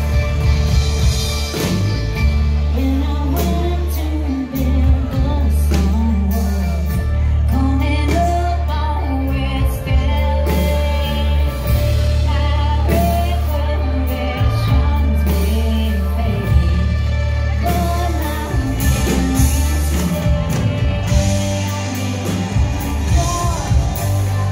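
Live country-rock band music: drums, bass and electric guitars, with a hollow-body electric guitar playing lead over a heavy, steady bass.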